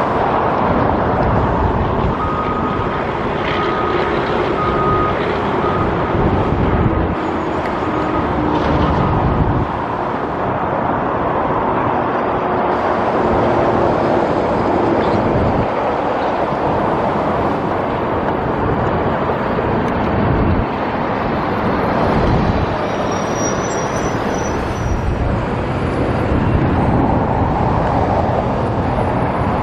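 Steady outdoor road traffic and construction-site machinery noise. A faint held machine whine runs through roughly the first ten seconds.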